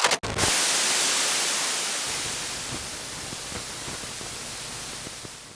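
A few sharp clicks, then a hiss of static-like noise that starts suddenly, is loudest at first and fades away over about five seconds.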